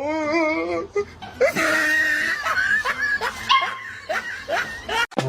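A dog's voice with a wavering pitch in the first second, then a run of short rising yelps mixed with people laughing.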